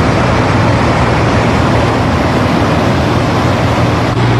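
A row of moored navy water-pushing boats running their engines steadily. It is a continuous low drone mixed with the rush of propeller-churned water, driving the flooded river's flow downstream.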